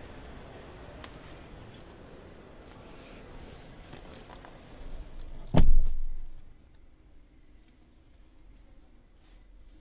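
Handling and rustling, then a door of a 2022 Chevrolet Silverado 2500HD crew cab shut with one heavy thud about five and a half seconds in. After it the surrounding noise is muffled, as heard from inside the closed cab.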